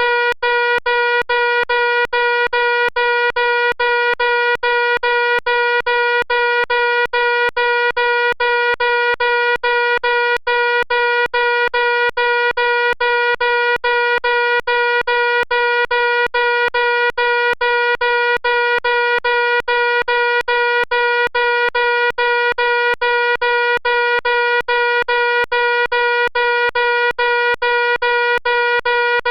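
Electronic fire alarm sounding a loud, steady tone that never changes pitch, with brief dropouts about three times a second.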